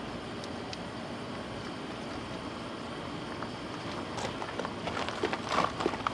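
Steady background hiss, with a cluster of short crackling rustles and light clicks about four seconds in as clear paint protection film and its backing are handled and pressed onto the truck's body.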